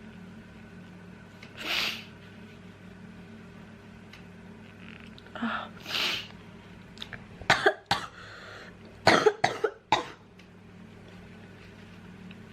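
A person with a cold breathing in noisily a few times, then coughing in two short fits, about seven and nine seconds in.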